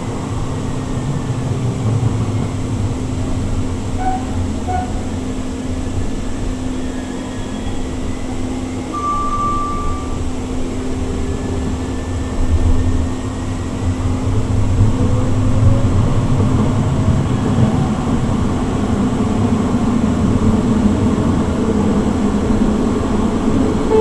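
Siemens S200 light rail vehicle running, heard from inside the car: a steady rumble of wheels on the track with a constant hum, and a faint whine from its IGBT-VVVF traction motors gliding in pitch. The ride gets louder a little past halfway as the train picks up speed.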